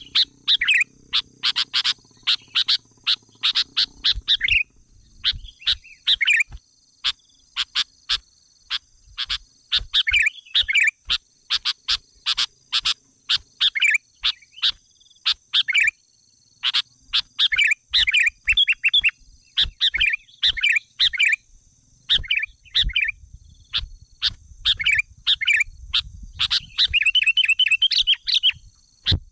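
Small bird chirping close by: short, sharp chirps repeated at irregular intervals, breaking into a fast trill near the end.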